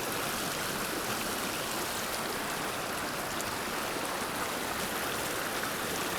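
Small mountain creek flowing: a steady rush of water.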